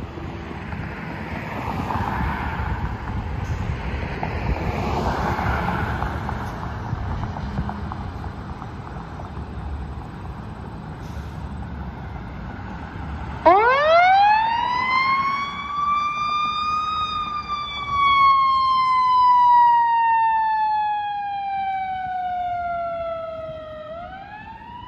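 Low rumble of vehicle engines and road noise, then about halfway through a fire department vehicle's siren starts. Its pitch climbs steeply over a few seconds, then slowly falls in one long wail, and near the end it climbs again.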